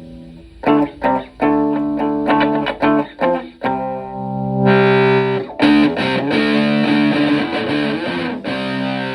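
Electric guitar, a Les Paul played through a modified Vox Tone Bender fuzz pedal into a Fender Twin clone amp, with a distorted fuzz tone. A chord fades out, then comes a quick run of sharply picked chords. After that, long fuzzed chords are held and left ringing.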